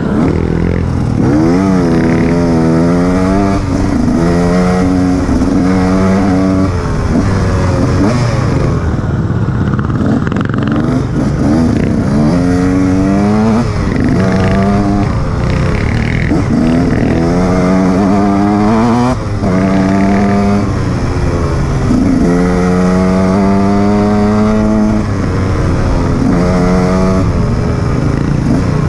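Enduro motorcycle engine under way off-road, revving up again and again in rising sweeps through the gears and dropping back between them, over a steady rumble of engine and riding noise.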